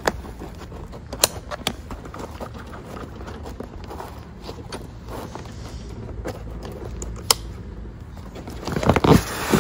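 Handling sounds from fastening the BLUE3 Nemo hookah-dive motor unit into its inflatable float: a few sharp plastic clicks, then a short burst of scraping and knocking near the end as the unit is seated.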